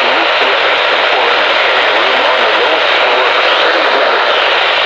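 Loud, steady hiss of radio static from a weather-radio receiver on a weak signal, with a low steady hum under it and faint traces of a broadcast voice.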